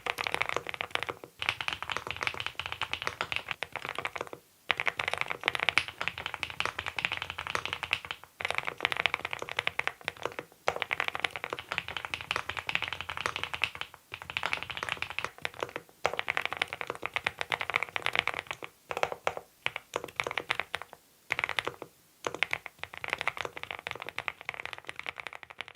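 Typing on a Monstar Gear Ninja87 Pro ALU aluminium-case mechanical keyboard: fast runs of key clicks broken by brief pauses every few seconds.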